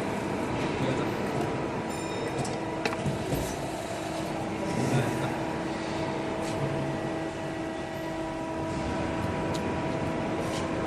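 Steady hum of a CNC hydraulic press brake's motor and hydraulic pump running, with a few faint clicks over it.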